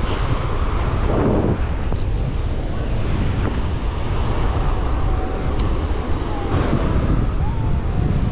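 Strong wind buffeting the microphone, over the steady rush of rough surf breaking on the beach.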